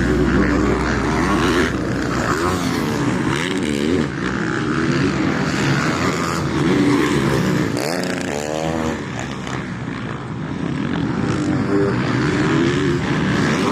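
Several motocross bikes racing, engines revving up and down through gear changes, with one engine sweeping up and back down sharply about eight seconds in.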